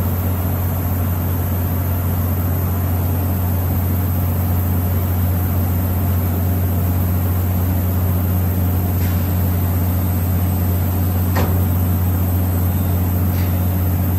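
DMG Mori DMU 125 monoBLOCK 5-axis machining center running with a steady low hum as its spindle head traverses, with a few short clicks in the second half.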